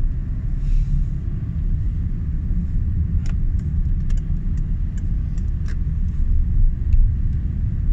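Steady low rumble of a moving road vehicle, with a few scattered light clicks.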